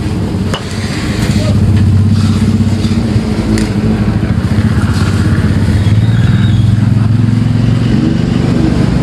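An engine running steadily with a low hum, louder from about two seconds in.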